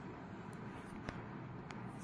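Hot oil in an iron kadhai sizzling as a stuffed chana dal puri is slid in to deep-fry, over a steady low hiss, with a few faint clicks. The hiss brightens near the end as the frying takes hold.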